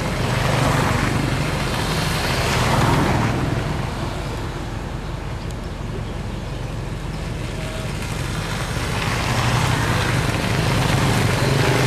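Motorbikes and scooters riding past one after another, their small engines humming. Louder as bikes pass close for the first few seconds and again from about nine seconds on, quieter in between.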